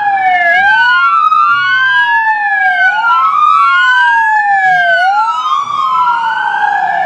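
Police car's electronic siren wailing, its tone rising and falling about every two seconds, with a second, fainter wail overlapping it.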